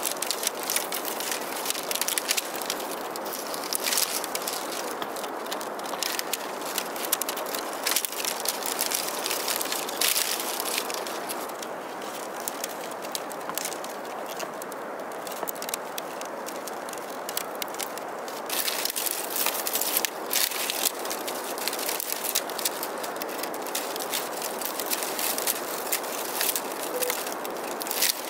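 Split bamboo strips rustling, scraping and clicking against each other as a basket is woven by hand, with many irregular crackles.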